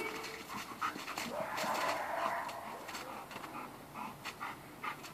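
A dog panting hard while gripping a bite sleeve: quick, short breaths that settle into a fast regular rhythm near the end.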